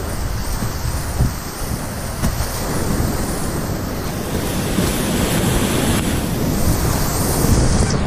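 Whitewater rapids rushing and churning around a kayak, heard close up from inside the rapid as a steady, loud wash of water.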